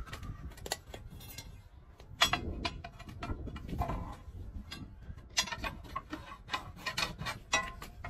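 Steel tyre bar knocking and clinking against a steel wheel rim as a large earthmover tyre is levered off: a hard knock about two seconds in, then a run of sharp metallic clicks, about three a second, in the second half.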